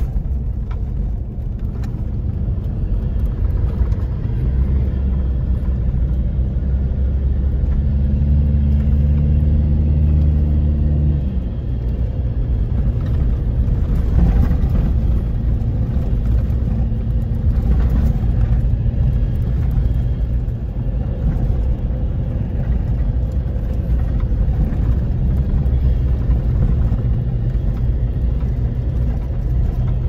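Mitsubishi four-wheel drive under way, a steady low engine and road rumble heard from inside the cabin. The engine note strengthens for several seconds about a third of the way through, then eases back to a steady cruise.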